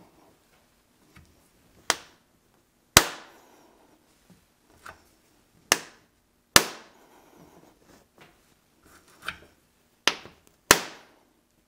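Thin sheet-steel truck door skin knocking sharply as it is pressed down by hand onto the door frame. There are six loud knocks at irregular intervals, each ringing briefly, with a few fainter ticks between them.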